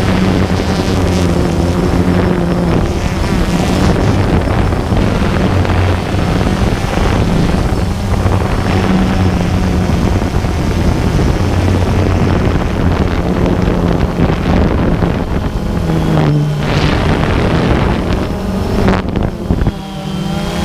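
DJI Phantom 2 quadcopter's motors and propellers running in flight, heard from the onboard camera, with heavy wind noise on the microphone. The hum shifts in pitch now and then as the motors change speed.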